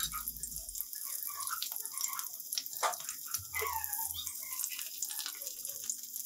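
Batter-coated raw banana slices shallow-frying in oil on a dosa griddle, sizzling with a steady crackle of small pops. A few sharper clicks and scrapes come as a spatula turns the slices over.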